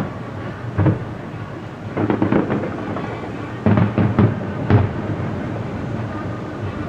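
Aerial fireworks bursting in a series of deep booms that echo: one about a second in, a quick cluster around two seconds, another just before four seconds and a last single boom near five seconds, with a steady rumble underneath.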